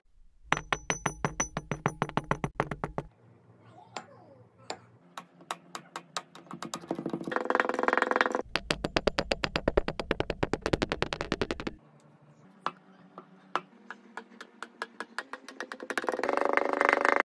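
Background music: an electronic track with a fast, even ticking beat and a swell of chords that builds up twice, about halfway through and again near the end.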